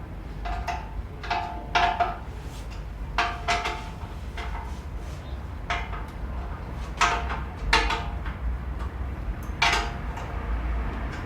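Irregular metallic clinks and taps of tools and metal parts being handled, several ringing briefly, over a steady low rumble.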